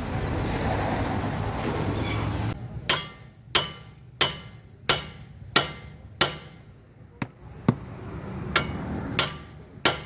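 Hammer blows ringing on steel parts of a car's front suspension, about one and a half a second, knocking a part free. The blows start about two and a half seconds in, after a steady noise.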